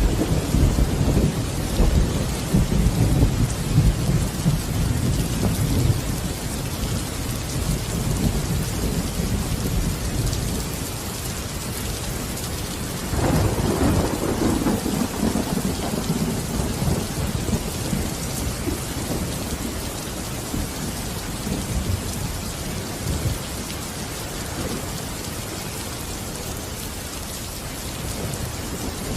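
Steady rain falling, with low rolling thunder rumbling through the first several seconds and again from about halfway through.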